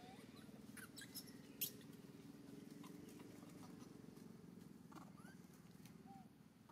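Faint short squeaks from a newborn macaque, a few at a time, with sharp crackles of dry leaves, the loudest a little over a second and a half in, over a steady low hum.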